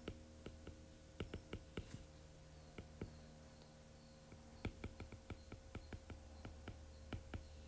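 Stylus tip tapping and clicking on an iPad's glass screen while words are handwritten, a run of faint, irregular ticks in two clusters, over a faint steady hum.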